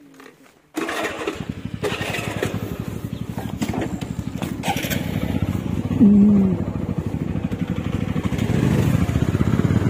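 Motorcycle engine running close by, its rapid firing pulses starting abruptly just under a second in and growing slightly louder toward the end. A short pitched sound stands out about six seconds in.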